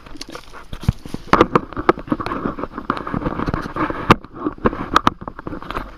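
Handling noise of a camera being mounted: irregular knocks, bumps and rustling right at the microphone.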